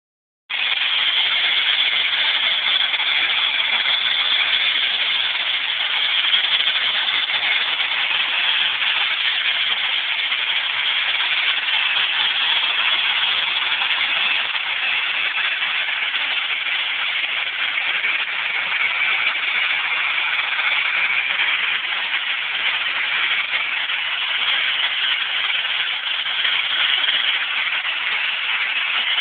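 Corn cob blasting: a hand-held blast nozzle fed by compressed air hisses steadily as it sprays ground corn cob grit against the log wall. It starts about half a second in.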